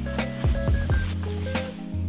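Background music: sustained notes over a bass line with a regular beat.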